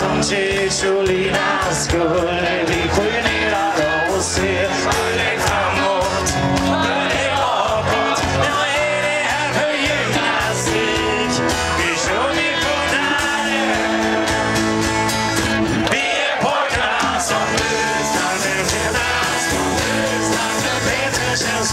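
Live rock band with electric guitars, bass, keyboard and drums playing a song while a man sings, recorded from within the audience.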